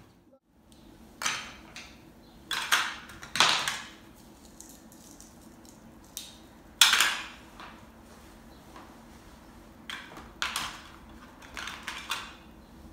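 Plastic play food and toy dishes knocking and clattering as they are handled and set down, in a scattering of separate sharp knocks at irregular intervals, the loudest about seven seconds in.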